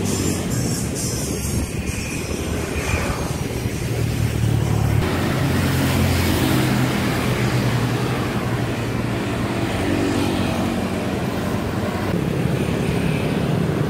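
Road traffic with passing motorcycles and a steady rush of wind over a phone microphone on a moving bicycle. The low rumble changes abruptly about five seconds in.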